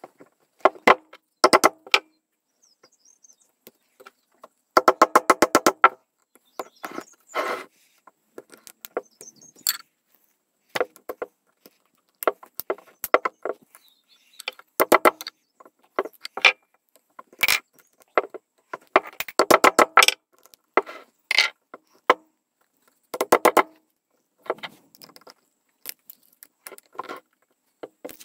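A screwdriver prying and levering at the tightly fitted end cap of a plastic Apple 20W USB charger clamped in a vise, played back about three times fast. It gives clusters of rapid sharp clicks and taps with short quiet gaps between.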